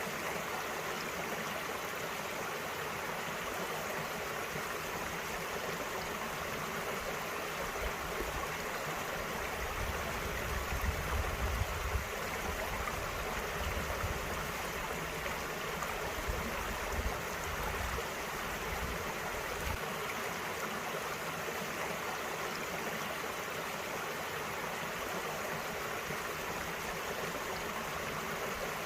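Small valley stream flowing steadily, an even rush of running water. A low rumble comes and goes through the middle.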